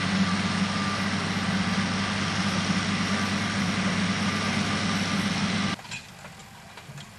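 A motor running steadily at idle, a constant drone that cuts off abruptly near the end, leaving only faint scattered clicks and rustles.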